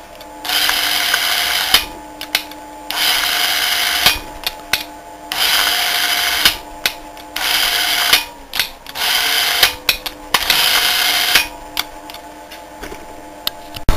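A 24 V DC brushed wheelchair drive motor, one brush replaced by a modified angle-grinder brush, run unloaded on the bench in several short bursts of about a second each, with pauses between as the power is connected and cut.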